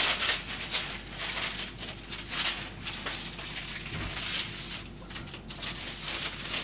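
Faint, irregular clicks and rustles of someone moving about and handling things in a kitchen.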